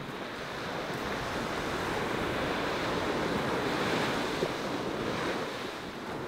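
Ocean waves breaking on a beach, the rush of surf swelling to a peak about four seconds in and then easing, with wind buffeting the microphone.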